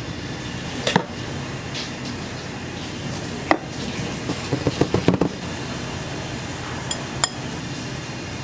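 Metal serving utensils clink against a ceramic noodle bowl as toppings are added. There are a few single clinks and a quick run of light taps about halfway through, over a steady kitchen hum.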